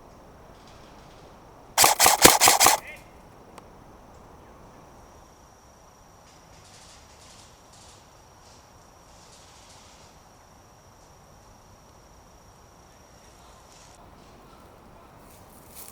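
Airsoft gun firing a rapid burst of about seven shots in roughly a second, about two seconds in.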